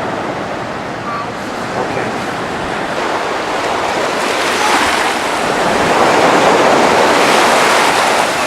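Ocean surf washing on the beach, a steady rush that swells louder about halfway through as a wave comes in.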